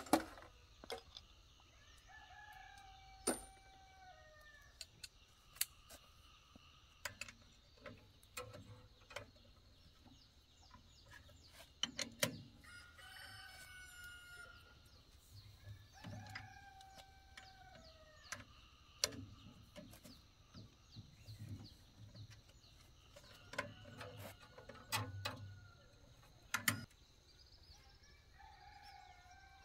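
A rooster crowing several times, with scattered sharp clinks and knocks of hand tools on metal.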